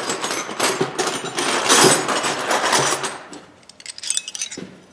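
Loose steel hand wrenches clattering and clinking together as they are rummaged through in a box: a dense run of metal-on-metal knocks and scrapes for about three seconds, then a few lighter clinks near the end.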